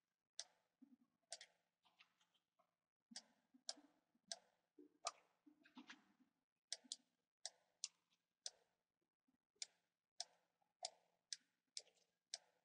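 Faint, irregular clicking of a computer mouse and keyboard, about two clicks a second.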